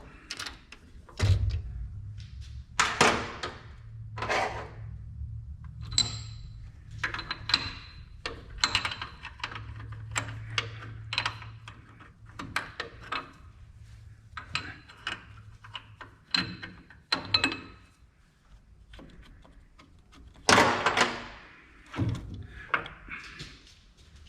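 Repeated metal clunks and clinks as a lathe steady rest is unclamped and lifted off the lathe bed, with a heavier clatter near the end. A low steady hum runs under the knocks from about a second in until past the middle.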